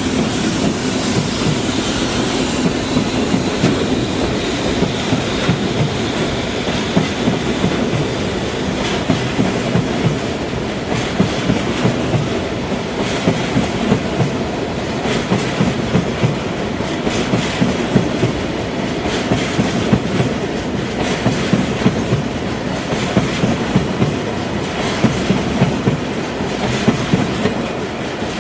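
Freight train rolling past at close range: a continuous rumble of the wagons with repeated sharp clicks of the wheels going over rail joints.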